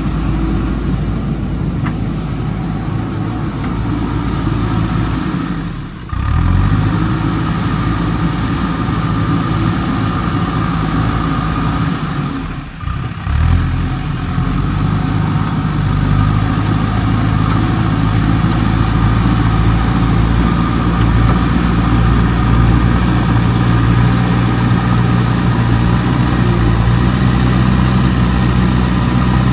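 Heavy diesel engine running steadily under work, with two brief breaks about six and thirteen seconds in.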